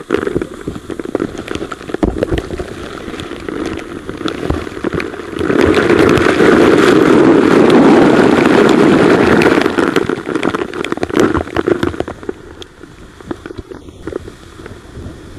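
Waterfall spray pelting a close action camera, many sharp drop impacts over a rush of falling water. About five seconds in it builds into a loud, dense rush as the camera goes into the main flow of the falls, then eases back to scattered drop hits.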